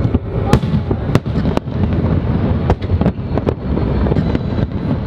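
Aerial fireworks going off: a string of sharp, irregularly spaced bangs over a continuous low rumble.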